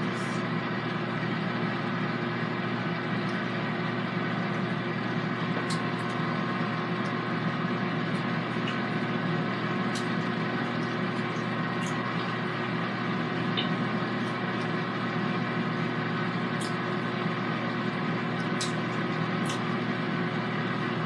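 Air fryer running, its fan making a steady whirring hum, with a few faint ticks.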